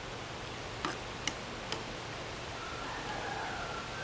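Three light clicks about half a second apart, a ladle tapping against the pot while skimming foam off the soup, over a steady faint hiss. A faint, steady high tone comes in near the end.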